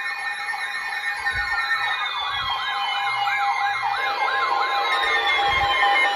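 Several emergency alert receivers sounding their alarms at once: overlapping fast siren-like warbles, about three a second, over steady alert tones, with slower falling tones, all growing louder toward the end.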